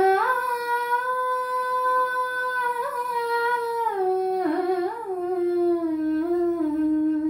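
A girl's solo voice, unaccompanied, singing one long phrase of a Malayalam light-music song. The line rises briefly at the start and holds steady. Past the middle it winds down through small turns and settles on a lower note, then stops sharply near the end.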